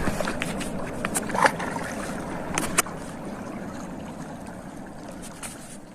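Water sloshing and splashing with scattered sharp clicks, fading out near the end.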